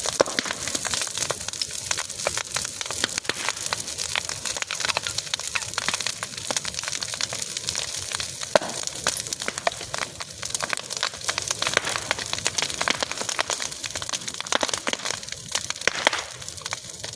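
Bonfire crackling, with dense, rapid snaps and pops over a steady hiss.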